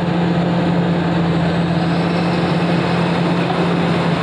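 Komatsu 450 excavator's diesel engine running steadily under heavy load as it strains to lift a bogged-down tipper truck with its bucket.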